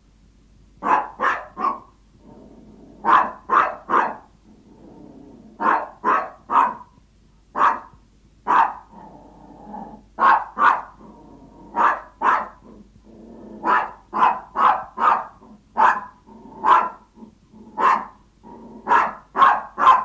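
Yorkshire Terrier barking in quick runs of two to four short barks, over and over: barking when hungry, begging its owner for food.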